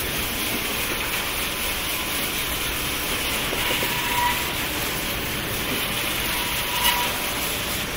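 Maxi-roll paper band saw cutting machine running, a steady mechanical noise with a light knock about seven seconds in.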